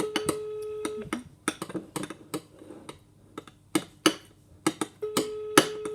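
A spoon clicking and knocking irregularly against a dish as slime is stirred, the loudest knock near the end. Twice, about four seconds apart, a steady one-second beep sounds: a telephone's ringback tone from a call ringing out on speaker.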